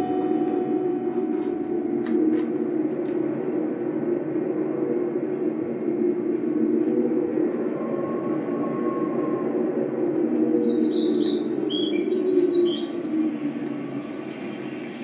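Recorded sounds played back over studio speakers from a pad-and-fader controller: a steady low rumble throughout, with a cluster of short high chirps a little over two-thirds of the way in, after which the level falls away.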